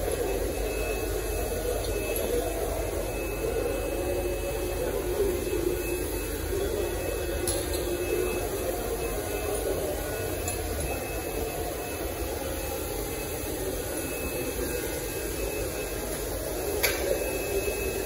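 Steady droning hum of a cattle shed, mechanical in character, with a low rumble beneath it and one sharp click near the end.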